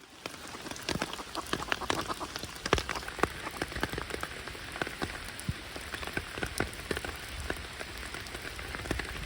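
Steady rain falling, with many separate drops clicking sharply close by.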